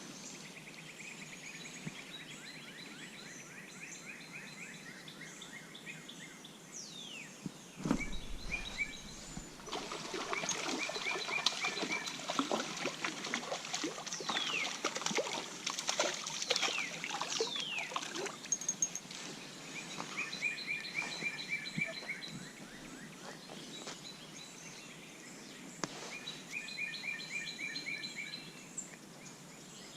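Songbirds singing outdoors: several rapid trills of quick repeated notes and some quick downward-sliding whistles. About eight seconds in comes a sharp thump, followed by several seconds of louder noise full of small clicks.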